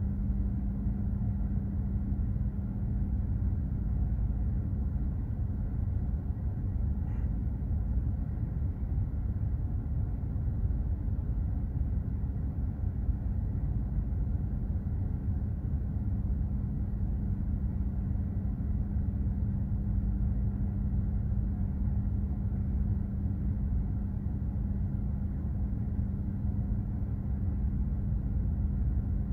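Container ship underway at sea: a steady low rumble of engine and machinery with a constant droning hum that does not change.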